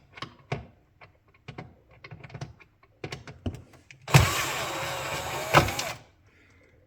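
Light clicks and handling knocks, then about four seconds in a cordless drill running for about two seconds, backing out a screw.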